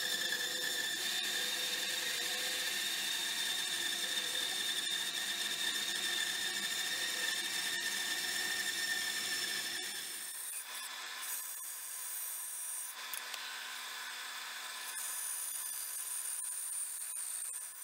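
Bandsaw running and cutting through a block of pine, a steady whine with the rasp of the blade in the wood. About ten seconds in the sound changes abruptly to a thinner, higher whine.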